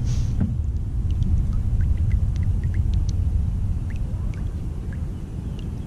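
Low wind rumble on the microphone, with scattered small plinks of water dripping from a resting kayak paddle blade into calm water.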